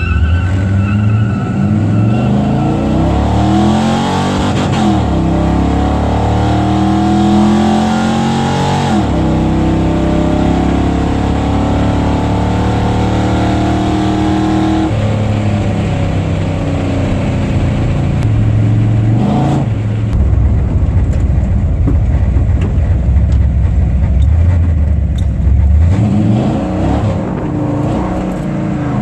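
Car engine under hard acceleration, its pitch climbing and then dropping sharply several times, then running steadier before climbing again near the end.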